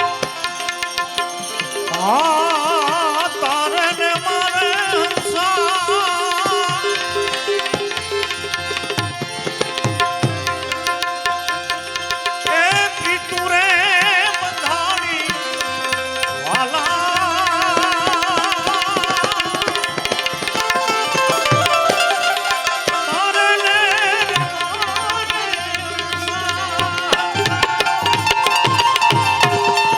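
Bhajan music: tabla keeping a steady beat under a melody line that wavers with a fast vibrato.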